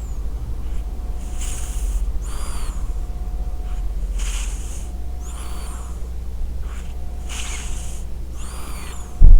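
Scottish Straight cat snoring in its sleep, human-like, with slow breaths that alternate between a rough noisy breath and a high whistling one. A loud low thump comes just before the end.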